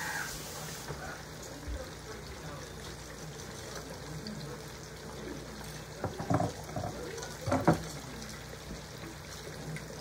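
Hot oil bubbling and sizzling steadily in an electric deep fryer as flour-coated chicken fries. A few sharp clicks come about six and seven and a half seconds in.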